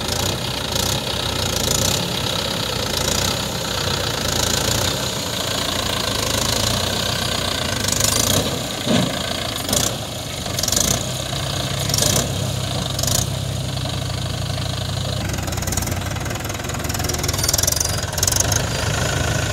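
Mahindra 575 DI tractor's diesel engine running steadily while it hauls a loaded trolley over loose soil, with short rattles every second or so.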